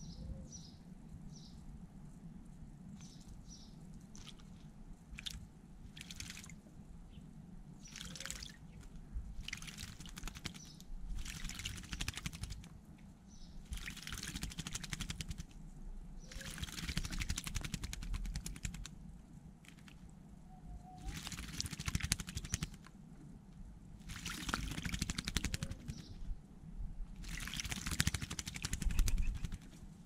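Common starling bathing in a shallow bird bath, flapping its wings in the water in repeated splashing bursts, each a second or two long, from about eight seconds in. Before that, a few short high bird calls.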